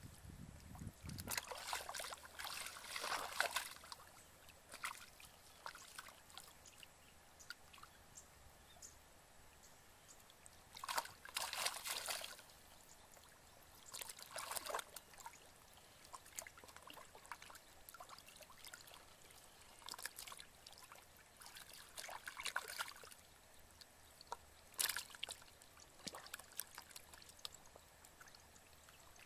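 Shallow muddy water splashing and trickling in short bursts every few seconds as hands work through it and fish are lifted into a plastic basin of water.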